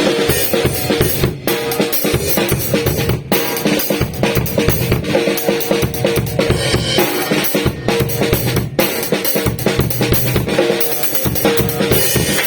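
A TAMA acoustic drum kit played in a busy, continuous groove of bass drum, snare and cymbal hits, with a few momentary gaps between phrases.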